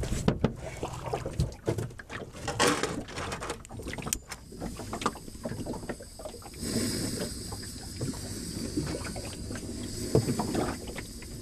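Hands rinsing in the sea over the side and gear knocking on a wooden boat. From about six and a half seconds in, a steady high hiss of gas as a canister is connected by a hose to a small portable camping stove burner.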